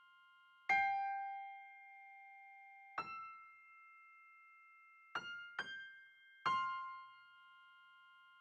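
Slow keyboard music: five chords struck one at a time, the first two a couple of seconds apart and the last three close together, each left to ring and fade out.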